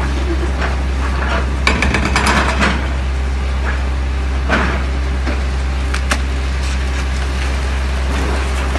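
Daewoo 225 hydraulic excavator's diesel engine running steadily while it tears down a brick and stone wall. Crashes and clatter of breaking masonry come about two seconds in, and again around four and a half and six seconds.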